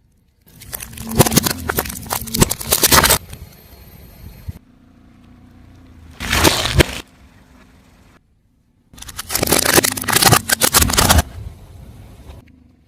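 Car tyre rolling over crunchy objects and crushing them: dense crackling and cracking in three spells, about half a second in, near the middle and in the second half, with abrupt silent cuts between them.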